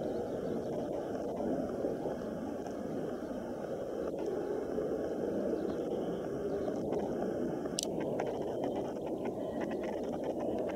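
Boeing 737's turbofan engines running at power on the ground, a steady rumbling roar heard from a distance, during an engine test run after a bird strike. A brief click about eight seconds in.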